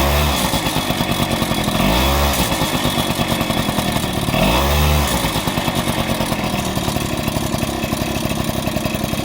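Honda Joker 90 two-stroke single-cylinder scooter engine given three short throttle blips, each rising and falling in pitch, then settling to a steady idle. Under the engine note runs a clicking, rattling noise, said to be worst as the throttle is released. The owner has not traced its source and has ruled out the gearbox bearings, since the noise is absent when the scooter coasts with the engine off.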